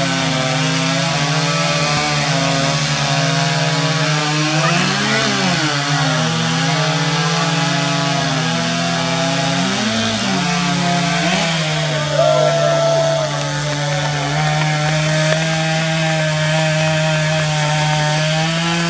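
Stihl chainsaw running at full throttle as it cuts through a log, a loud steady engine note whose pitch briefly swings up and down about five and ten seconds in.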